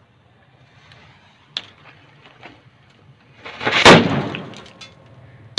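A cell bomb firecracker taped to a WD-40 aerosol can explodes with a loud blast about four seconds in, which dies away over about a second. It is followed by a few sharp crackles. A single sharp click comes about a second and a half in.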